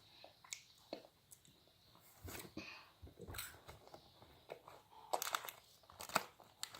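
Faint, scattered crinkles and crunches from a KitKat bar and its foil wrapper being handled.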